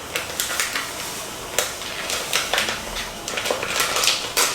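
Dry green gelatin dessert powder poured out of its packet, a hiss of granules with irregular crackles and clicks.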